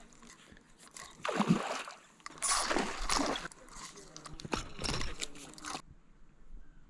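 Water splashing and sloshing in three loud bursts, then cutting off abruptly about six seconds in.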